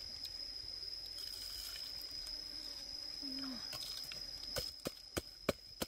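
Salt poured onto a disc of palm sugar in a wooden mortar, a soft hiss. Near the end a wooden pestle starts pounding the chilies, garlic and shallots, with sharp knocks about three a second.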